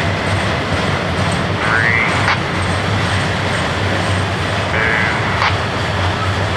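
Norfolk Southern welded rail train rolling along the track: a steady rumble with a low hum underneath, and brief high-pitched sounds about two and five seconds in.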